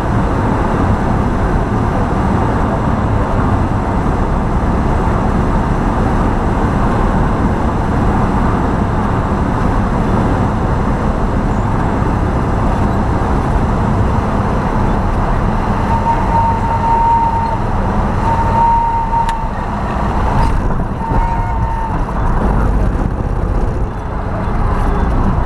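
Cessna 172 cockpit noise on a gusty crosswind landing: a loud, steady rumble of the engine and the air rushing past. About two-thirds of the way in, the stall warning horn sounds three times in short, high, steady tones as the plane is flared for touchdown.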